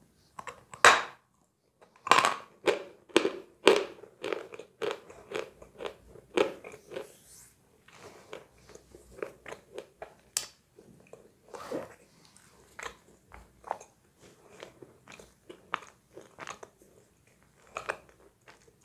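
A person biting into a lump of chalk with one sharp crunch about a second in, then chewing it in a run of crunches, about two to three a second, that grow softer and sparser toward the end.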